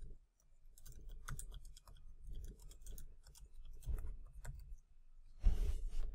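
Typing on a computer keyboard: a run of irregular key clicks. A short, louder burst of noise comes about five and a half seconds in.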